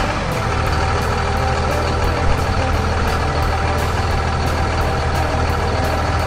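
Sound effect of a truck engine running steadily, with a low hum under a broad, even noise.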